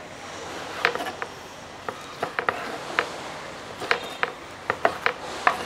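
Kitchen knife cutting raw beef liver into cubes on a wooden chopping board: irregular sharp taps of the blade striking the board, more than a dozen of them.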